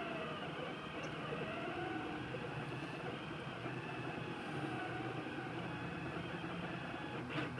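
Rostock delta 3D printer running, its stepper motors whining in several tones that glide up and down in pitch as the print head moves, over a steady low hum.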